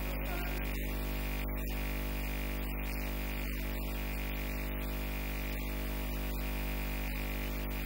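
Steady electrical buzz on the audio, a low mains-type hum with many evenly spaced overtones and hiss, cutting in abruptly and holding unchanged throughout.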